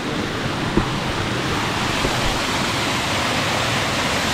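Waterfall close by: a steady, loud rush of falling water, with a light knock just under a second in.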